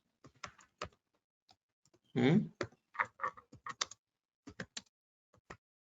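Computer keyboard typing: irregular keystrokes, bunched into a quick run about three seconds in. A brief voice sound comes about two seconds in.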